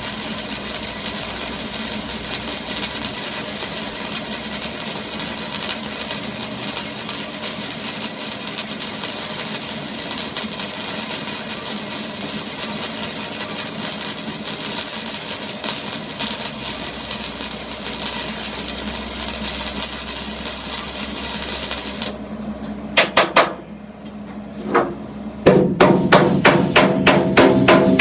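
A continuous harsh, crackling noise that cuts off suddenly about three quarters of the way through. Then a few separate strikes, and near the end a quick series of hammer blows ringing on metal.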